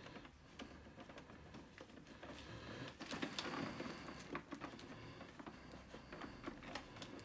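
Hands handling the plastic body of an Epson EcoTank inkjet printer, feeling for a catch: faint small clicks and knocks, with a brief rustling stretch about three seconds in.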